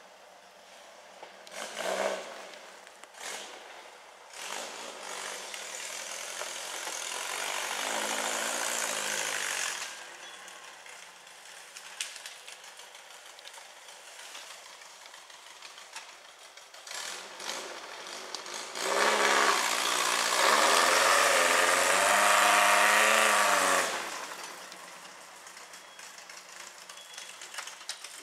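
A VW-engined rail buggy's engine revving in bursts as it climbs, its pitch rising and falling. The loudest, longest rev comes about two-thirds through and lasts about five seconds, and a few sharp knocks come early on.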